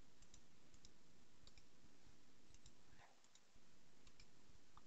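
Faint computer mouse clicks, several quick press-and-release pairs spread through, over a low steady background hiss.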